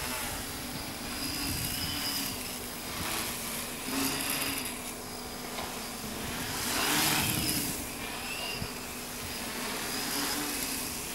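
Multirotor drone's electric motors and propellers buzzing as it hovers and drifts in the air. The whine wavers up and down in pitch as the motors work, and swells loudest about seven seconds in.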